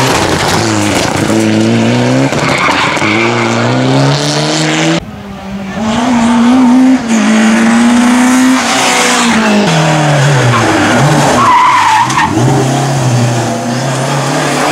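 Rally cars driven hard through tarmac bends, one after another: a Mitsubishi Lancer Evolution IX, then a Citroën Saxo and a Renault 5. Engines rev up and drop again and again through gear changes and braking, with a brief tyre squeal near the end.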